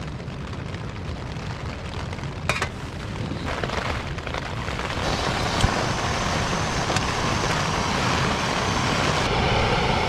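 Small gas canister backpacking stove being lit and burning with a steady rushing hiss that grows louder from about halfway through, after a sharp click about two and a half seconds in. Constant noise of rain and wind on the tent fabric lies underneath.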